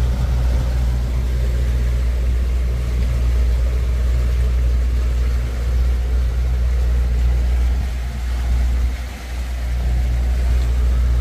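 Motorboat under way: its engine drones steadily, with wind and rushing water over it.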